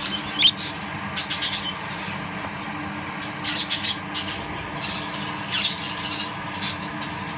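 Budgerigars giving short, scattered squawks and chirps, several separate calls a second or so apart, over a steady low hum.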